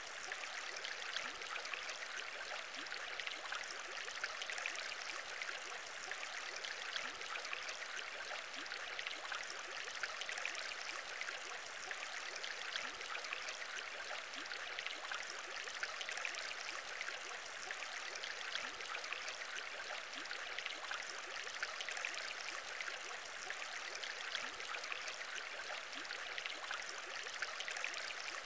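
Aquarium bubbling: a dense, steady stream of small bubbles popping and trickling, without pause.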